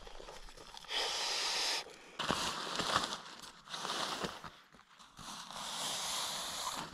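Nylon camping gear being handled: an inflatable sleeping mat and thin tent fabric crinkle and rustle in several short bursts, then a sleeping bag is pulled out of its stuff sack with a longer rustle near the end.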